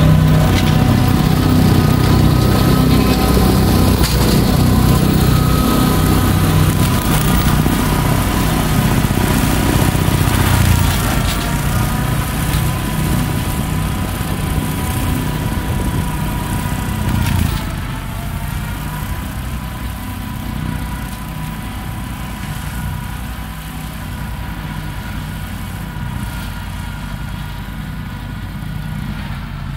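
Tractor engine running under load, driving a Woods BB720XWD rotary slasher cutting grass, with a steady whine from the cutter drive. It grows fainter in steps about a third and about halfway through as the tractor draws away.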